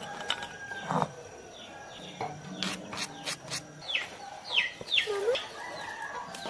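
Chickens: a run of short, high peeps, each falling in pitch, about two a second in the second half, with one lower cluck among them. A few sharp clicks come shortly before.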